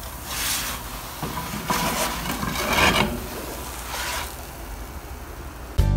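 A spatula scraping and rubbing against a paratha on a tawa griddle in a few short strokes. Guitar music starts near the end.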